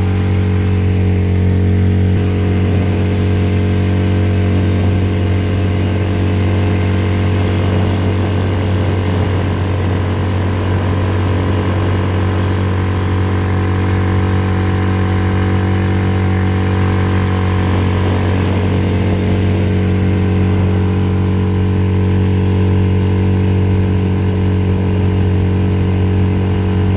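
Boat's outboard motor running steadily at cruising speed, its pitch and level unchanging.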